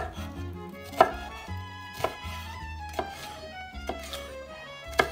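Chef's knife slicing a green bell pepper into strips on a wooden cutting board, the blade knocking on the board about once a second. Background music plays underneath.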